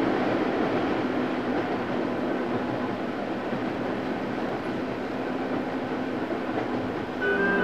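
Steady running noise of a passenger train heard from inside its compartment. Music comes in near the end.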